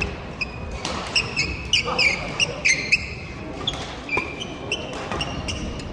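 Sports shoes squeaking on an indoor badminton court floor many times during a doubles rally, mixed with sharp racket hits on the shuttlecock.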